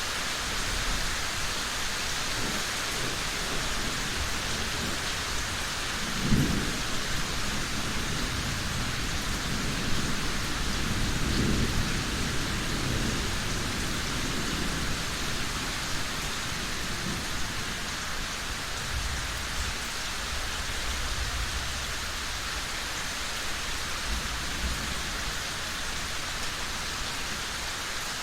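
Steady heavy rain with thunder: a short sharp clap about six seconds in, a longer rumble a few seconds later, and fainter low rumbles near the end.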